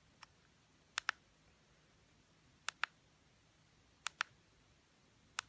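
Push buttons on a handheld RC turbine data terminal clicking as the menu is scrolled. There are three double clicks, each a press and release, about a second and a half apart, and a single click near the end.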